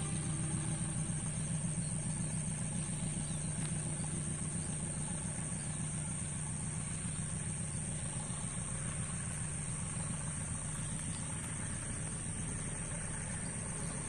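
Low rumble of a passing train, slowly fading as it moves away.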